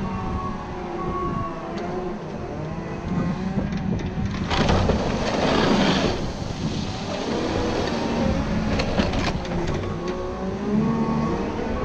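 Caterpillar 926M wheel loader's diesel engine running and changing pitch as it works a snow plow, with its reverse alarm beeping near the start and again near the end. A louder rushing noise comes about five seconds in as the blade pushes heavy, wet snow, and a few sharp knocks follow a few seconds later.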